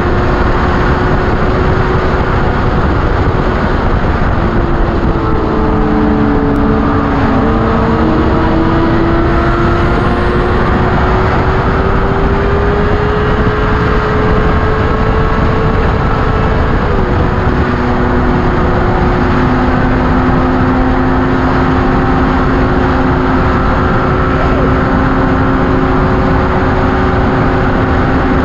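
Yamaha FZ6's inline-four engine running at high road speed, around 180 km/h, under heavy, steady wind rush on the microphone. The engine note shifts a few times with the throttle and drops in pitch partway through.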